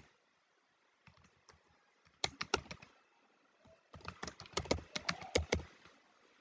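Typing on a computer keyboard: a short run of keystrokes about two seconds in, then a longer run from about four to five and a half seconds in.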